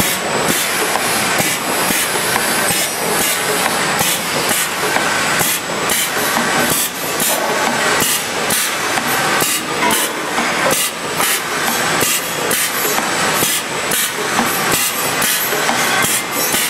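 Automatic arepa production line running: a continuous mechanical clatter of rapid, irregular sharp clicks from the pneumatic pressing head and conveyor.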